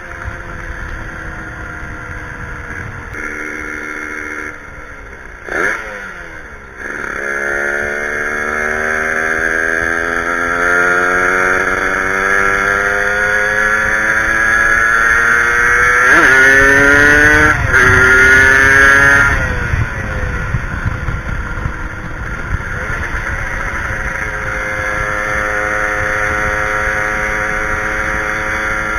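Two-stroke motorcycle engine under way, pulling up through the gears. Its pitch climbs in a long rising sweep, drops sharply at each shift, then eases off near the end of the pulls and holds a steadier cruising note.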